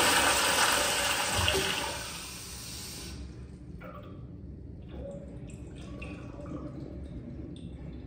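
Kohler toilet with a flushometer valve finishing its flush: the loud rush of water fades away over the first three seconds or so. The bowl then refills with a soft trickle and a few faint drips.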